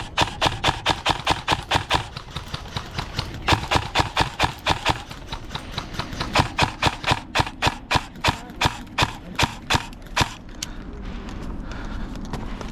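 Airsoft MCX rifle firing a rapid string of semi-automatic shots, about five sharp cracks a second, with a brief pause and stopping about ten seconds in.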